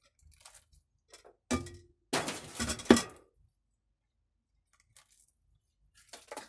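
Metal kitchenware clinking and clattering as it is handled and set down: a sharp knock about a second and a half in, then about a second of rattling clinks ending in one sharp clink, and a few lighter clinks near the end.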